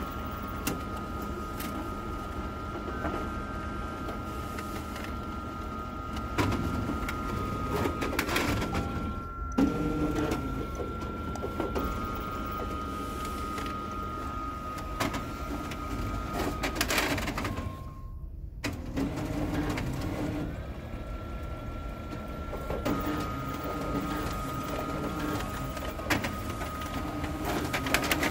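Xerox AltaLink B8055 laser printer running a print job: a steady high whine with low squeaks that come and go as paper is pulled through. The owner puts the worse squeaking and odd paper pulling down to heavy use, with the machine due for a rebuild.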